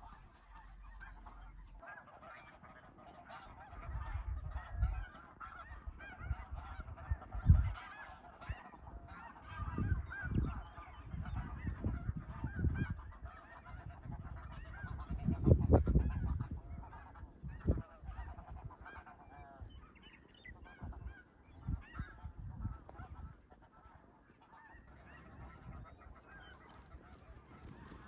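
A dense chorus of snow goose calls: many high, yelping honks overlapping without a break. Low rumbles hit the microphone now and then, the strongest about seven seconds in and again around fifteen to sixteen seconds.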